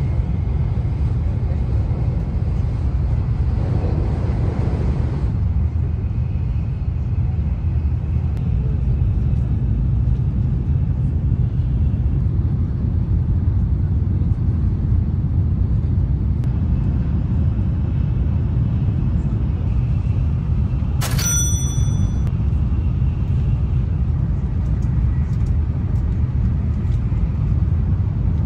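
Steady low rumble of an N700A Shinkansen bullet train running, heard from inside the passenger cabin. A brief, sharp ringing clink comes about two-thirds of the way through.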